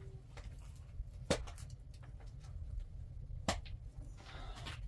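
Two sharp knocks about two seconds apart over a steady low rumble, with a brief rustle near the end.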